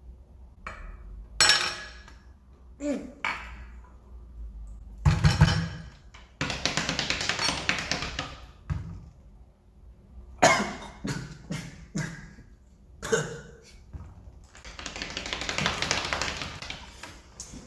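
A young man reacting to the sourness of a lemon: scattered short yelps, coughs and knocks, with two longer hissy stretches about a third of the way in and near the end.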